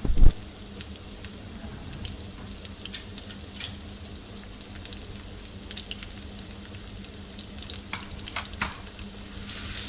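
Chopped onions sizzling in hot oil in a karahi, with scattered crackling pops as they fry toward golden brown. A short thump comes right at the start, and the sizzle swells louder near the end.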